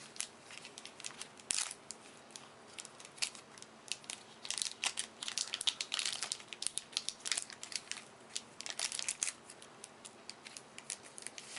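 Plastic booster-pack wrapper crinkling and tearing open along its perforated edge, a dense run of crackles that is busiest in the middle.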